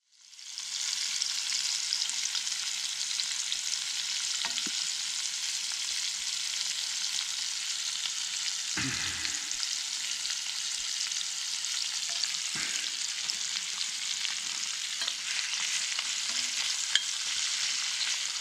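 Sliced potatoes and carrots sizzling in a cast iron skillet over a twig stove: a steady frying hiss, with a few light knocks in the pan.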